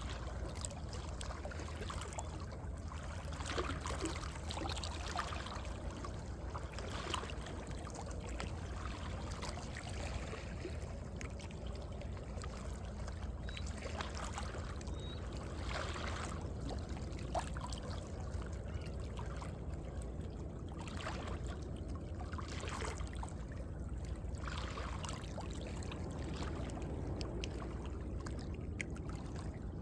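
Small sea waves lapping and sloshing in the gaps between coastal rocks, with irregular splashes every second or two over a steady low rumble.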